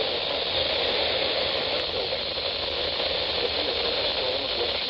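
Steady hiss and static from a radio receiver, with no speech or alert tones.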